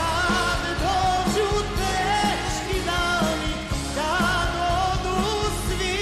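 Live band playing a Balkan pop-folk song: a held, wavering lead melody over a steady beat.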